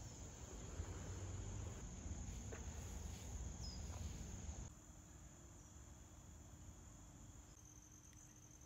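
Insects trilling steadily in a high, continuous tone, under a low rumble that drops away suddenly about halfway through.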